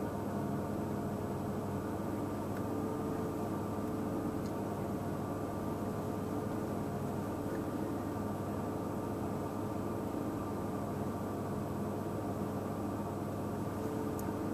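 A steady mechanical hum with a few constant held tones over a faint hiss.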